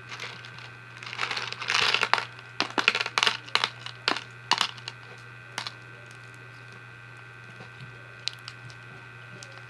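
Slime and small plastic beads being handled: a brief rustle, then a run of sharp clicks and crackles, with a few single clicks later.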